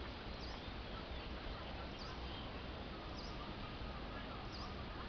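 Outdoor background noise, with a faint high chirp repeated about every one and a half seconds and a few faint bird calls.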